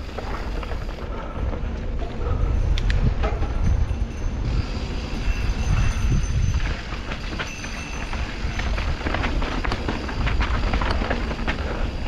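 Mountain bike rolling fast down a dirt singletrack: a steady low rumble of tyres and wind on the helmet-mounted camera, with frequent sharp clicks and rattles from the bike jolting over roots and stones.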